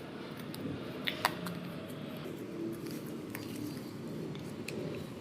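Wet slime being worked by hand, giving scattered small clicks and pops, the sharpest two a little after a second in, over a steady low background rumble.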